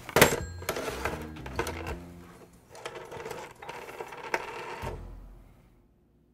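Handset of a black corded desk telephone picked up off its cradle with a sharp knock, followed by a run of quick mechanical clicks from the phone as a number is dialled; the sound fades out near the end.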